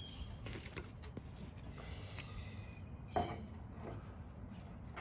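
Faint scraping and light clicks of staples being worked out of a metal cruiser skirt, with one slightly louder knock about three seconds in.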